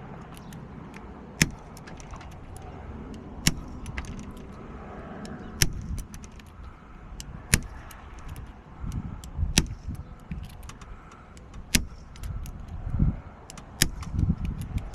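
A bump key tapped into a lock cylinder with a small hammer: sharp metallic taps about every two seconds, seven in all, over a low rumble. These are repeated bumping attempts on a lock that resists them, which the locksmith suspects is a storeroom-function lock.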